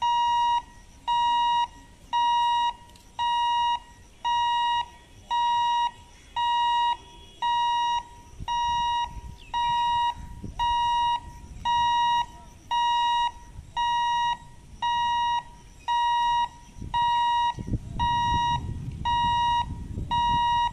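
Level crossing warning buzzer beeping steadily, one high beep about every second, each about half a second long. A low rumble builds under it near the end.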